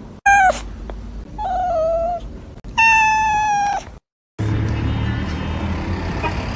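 A cat meows three times: a short falling meow, then a longer one, then a steady meow nearly a second long. After a brief silence, a steady low rumble takes over, the sound inside a car cabin.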